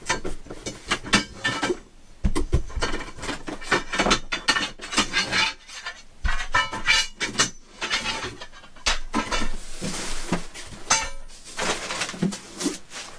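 Black aluminium roof-rack bars clinking and clattering against one another in irregular knocks as they are lifted out of a cardboard box and laid in a pile, with a short scrape of cardboard near the end.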